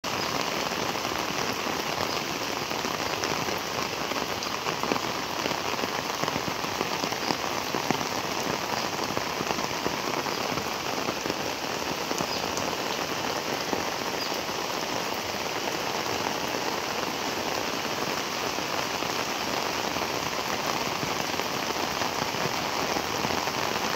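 Heavy rain falling steadily onto flooded paddy fields, countless drops hitting the muddy standing water in an even, unbroken hiss.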